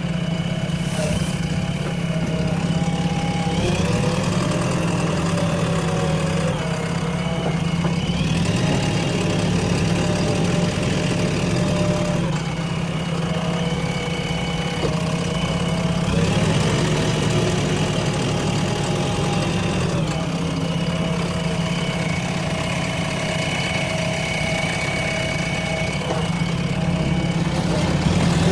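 JCB 3DX backhoe loader's diesel engine running steadily while working. Higher tones above the engine note shift every four seconds or so as the load changes.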